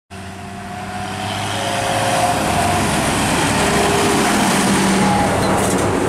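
Diesel farm tractor driving along a road toward and past the listener, its engine hum growing louder over the first couple of seconds as it approaches, then staying loud as it goes by close.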